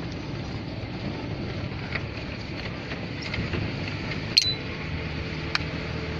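Steady low engine and road rumble of a GAZelle van driving slowly, heard inside the cab. There is a sharp click about four seconds in and a lighter one a second later.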